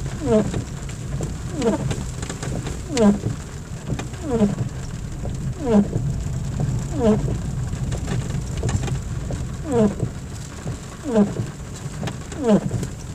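Windscreen wiper blades squeaking across wet glass, a falling squeak on each sweep about every 1.4 seconds, over the steady low rumble of the car driving on the road.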